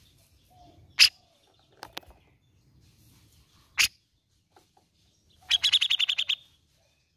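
A caged cucak jenggot (grey-cheeked bulbul) calling: a few sharp, short single notes, then a rapid chattering run of about a dozen notes, the loudest part, near the end.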